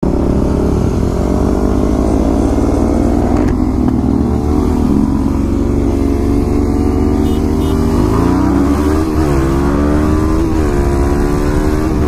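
Motorcycle engine running hard, its revs climbing and then dropping several times, with a steady rush of wind over it.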